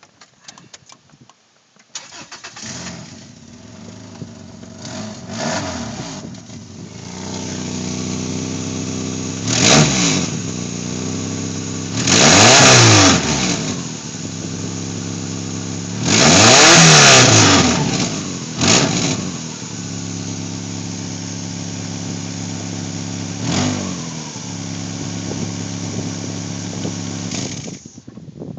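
1997 Subaru Legacy 2.2 flat-four starting about two seconds in, then idling and revved several times, twice held longer, before it is shut off near the end. It runs loud through an exhaust leak, from a weld in front of the second catalytic converter that has broken clean.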